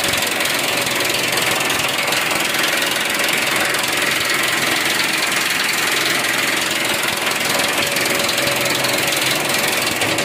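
Construction-site machinery running steadily and loud: a constant mechanical drone with a steady hum running through it.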